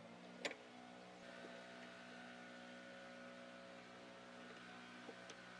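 Near silence: a faint steady hum, with one soft click about half a second in and a couple of faint ticks near the end.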